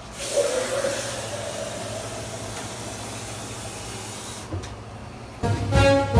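Hot stew in a large aluminium pot hissing and sizzling as water goes in over a frozen block of shrimp. The hiss starts suddenly, then fades over a few seconds. Near the end, brass music starts.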